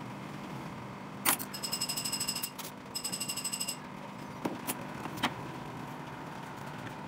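Sharp clicks of small metal hand tools at a jeweler's bench, and two runs of rapid, high-pitched pulsing beeps, each a bit under a second long, a little after the first click.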